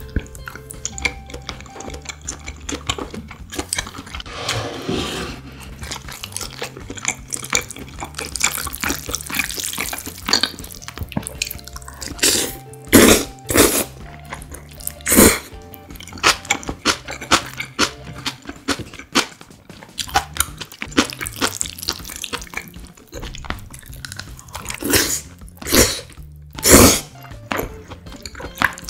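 Kitchen sounds over soft background music: water running at a sink and dishes or utensils knocking, with several loud sharp clatters in the second half.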